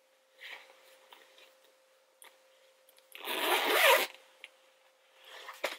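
A zipper pulled once, a rasp about a second long a little past halfway, with a few faint handling sounds around it.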